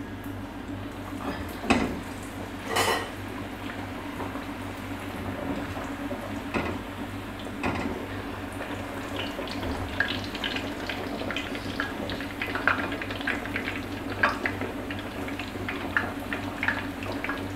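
A katlama flatbread frying in hot oil in a pan, the oil sizzling and crackling, busier in the second half. A metal slotted spoon knocks against the pan twice near the start, over a steady low hum.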